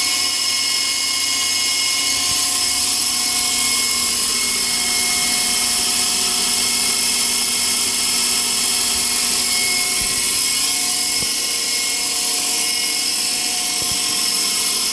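FX070c RC helicopter's newly installed main motor and rotor running on the ground at about 20% throttle: a steady high-pitched whine that holds the same pitch throughout.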